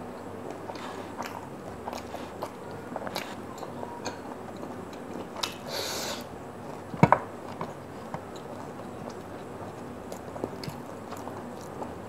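Close-up eating sounds: a person biting into and chewing sauced fried chicken, with many small wet mouth clicks. A little past halfway come two sharp knocks in quick succession, the loudest sounds.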